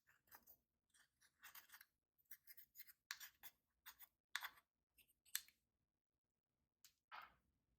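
Slime being mixed and squeezed by hand, giving a quick irregular string of short squishing crackles and pops, with a pause of about a second near the end before one more.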